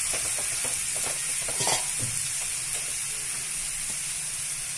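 Steady light sizzle from a hot kadhai of carrots and peas, with scattered clicks and scrapes of a spoon against the pan as grated boiled potato is dropped in. There is one louder knock a little under two seconds in.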